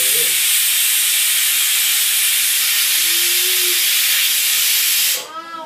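Pressure cooker whistling: steam forces up the weight valve on the lid and vents in a loud, steady hiss as the built-up pressure is released. The hiss cuts off about five seconds in, with a brief warble as it dies away.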